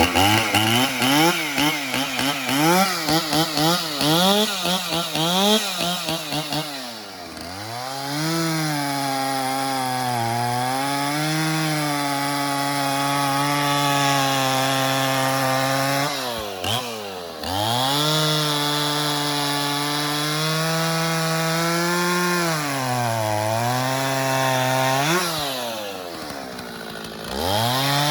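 Stihl 044 two-stroke chainsaw blipping its throttle rapidly for about six seconds, then cutting wood at high, fairly steady revs, with the pitch dropping briefly a few times between cuts. It is running a freshly sharpened chain with the rakers not taken down too far, and it cuts smoothly, revving high without bogging.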